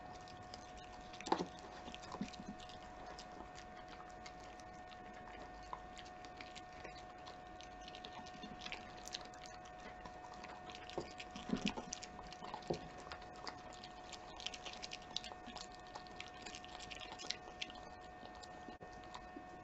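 A Keeshond chewing and licking food off a tabletop: irregular wet clicks and smacks, busiest towards the middle and later part. A faint steady hum runs underneath.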